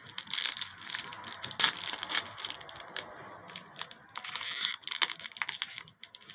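Wrapper of a baseball card pack being torn open and crinkled, in several bursts of crackling with short pauses between.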